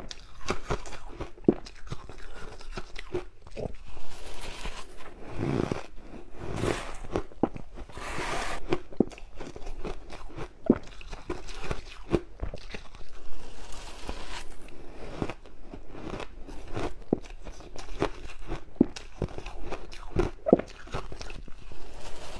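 Close-miked crunching and chewing of mouthfuls of powdery frozen frost ice, a dense run of sharp crunches and crackles from bite after bite.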